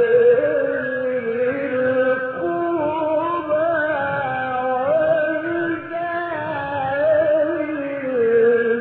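A man reciting the Quran in the melodic mujawwad style: one long, ornamented phrase whose pitch winds up and down in small steps.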